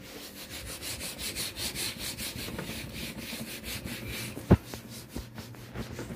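A hand wiping sanitizer across a tabletop in repeated rubbing strokes. There is a single sharp knock on the table about four and a half seconds in.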